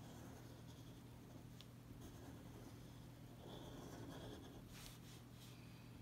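Faint scratching of a fine-liner pen tip drawing lines on paper, with a few light ticks and a slightly louder stretch of scratching about four seconds in.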